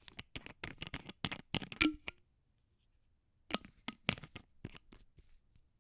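Plastic screw cap being twisted on a glass bottle: a quick run of scraping clicks for about two seconds, a pause, then a second run of clicks.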